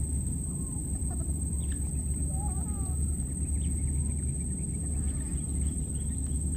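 A few faint short chirping animal calls, scattered through the first few seconds, over a steady low rumble and a constant high-pitched whine.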